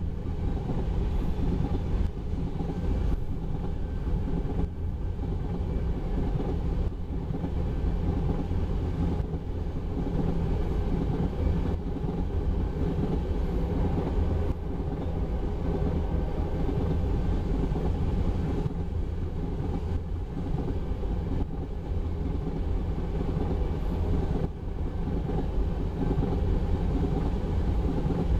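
Empty railroad tank cars of a freight train rolling past, a steady low rumble of steel wheels on rail.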